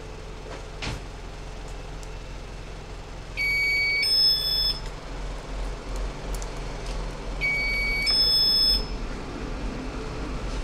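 A two-note electronic chime sounds twice, about four seconds apart, over a steady low hum.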